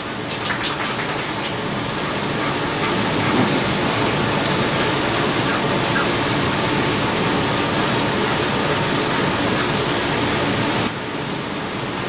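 Pork chops and butter oil sizzling on a hot griddle plate: a steady, loud hiss that steps down a little near the end, with a few light ticks in the first second.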